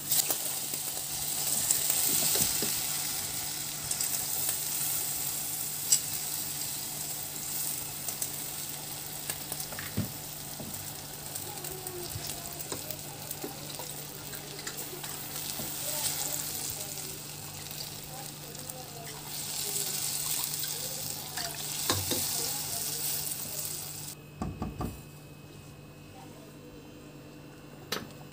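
Hot chicken broth poured onto small macaroni browned in ghee in a hot pot, sizzling and hissing steadily as it boils up over the pasta, with a few light clicks of a spoon. The hiss drops away suddenly near the end.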